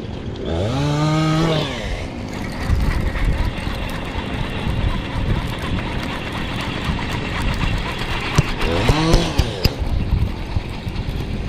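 Chainsaw in the distance, revved up twice, about half a second in and again near nine seconds, each time rising in pitch and holding briefly, with a steady buzz between the revs.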